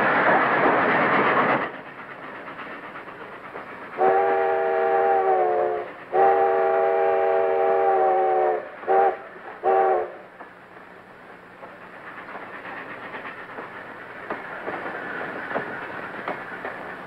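Steam locomotive whistle sounding a chord of several tones, two long blasts followed by two short ones, over the rumble and clatter of a moving train. The train's running noise is loud at first and drops suddenly under two seconds in.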